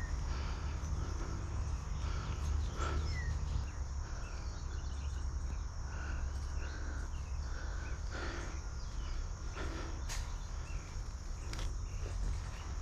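Outdoor field ambience: a steady low rumble on the microphone with short, repeated chirps from birds or insects, and a few faint sharp clicks scattered through.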